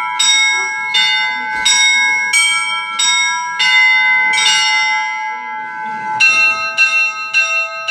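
Russian church bells rung by a bell ringer: smaller bells are struck in a repeating pattern, about once every two-thirds of a second, over the held ring of a larger bell. About six seconds in, the pattern changes: a lower bell joins and the strikes come about three a second.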